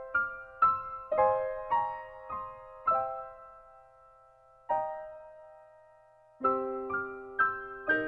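Soft background piano music: single notes struck and left to ring, a pause of about a second and a half near the middle, then lower notes joining in fuller chords near the end.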